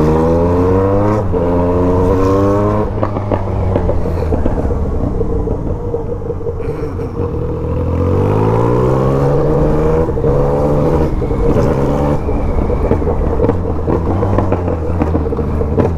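Yamaha MT-09's three-cylinder engine, with a remapped ECU, pulling away and accelerating. Its pitch rises, drops at an upshift about a second in, and rises again before the throttle is eased. It pulls up in pitch once more near the middle and then backs off again.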